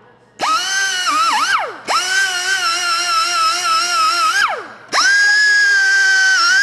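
A high-speed rotary power tool whining as it spins up three times. It wavers and dips in pitch, as happens when it bears on metal, and the first two runs wind down in pitch before it is triggered again.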